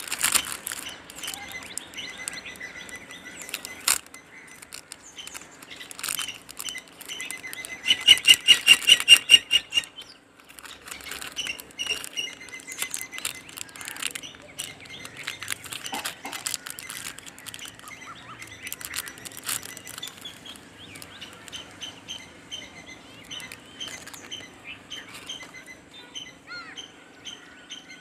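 Clear plastic jewellery packaging crinkling and rustling as it is handled and opened, with birds chirping. About eight seconds in there is a loud fast trill of chirps.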